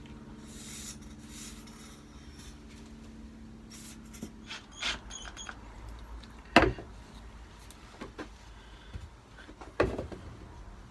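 Wooden pieces being handled and rubbed on a workbench, with a few sharp knocks as they are set down, the loudest two about six and a half and ten seconds in. A faint steady hum sits underneath in the first half.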